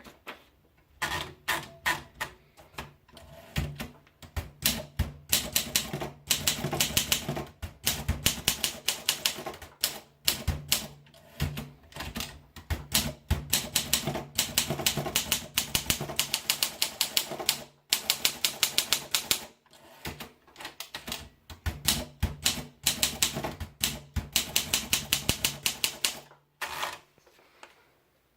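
Olympia SM2 manual portable typewriter being typed on: quick runs of sharp keystroke clacks, broken by a few short pauses.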